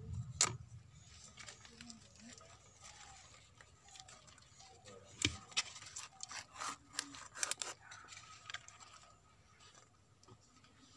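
Coconut-shell spoon scraping and knocking against a clay pot as pieces of lovi fruit are scooped out, with the rustle of a banana leaf. Sharp clicks come about half a second in, a little after five seconds, and in a quick cluster between about six and eight seconds.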